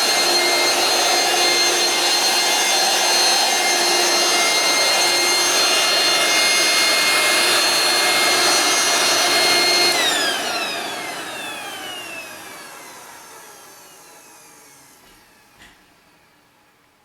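Dirt Devil Power Stick vacuum running with a steady high motor whine, then switched off about ten seconds in. Its motor winds down, the whine falling in pitch and fading over several seconds. A small click comes near the end.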